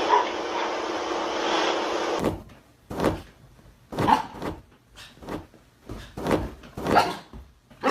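A dense, steady wash of noise for about two seconds, then after a sudden cut a dog barking in short single barks about a second apart.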